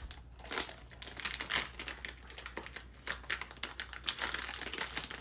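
A blind-box foil bag crinkling and crackling in irregular bursts as hands squeeze and pull it open.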